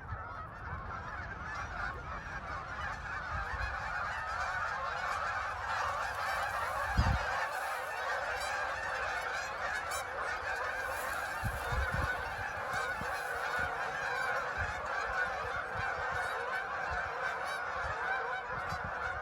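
A large flock of geese honking all at once, a dense unbroken chorus of many overlapping calls. A couple of brief low bumps about seven and twelve seconds in.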